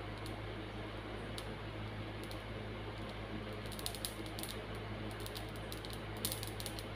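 Mustard seeds dry-roasting in a metal pan, crackling and popping: a few single pops at first, then quick clusters of pops from about halfway, over a steady low hum. The crackle is the sign the seeds are roasted enough.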